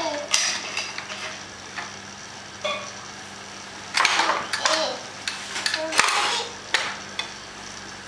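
Hard plastic toy activity table knocking and rattling against a tiled floor as a toddler turns it over and handles it, the loudest clatter about four and six seconds in. A few short toddler vocal sounds come in between.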